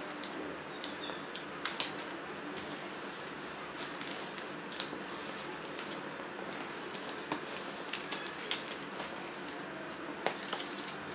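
Paper being folded and creased by hand into a wrapper around a greeting card: soft rustling with scattered sharp crackles as the flaps are pressed down, over a steady background hiss.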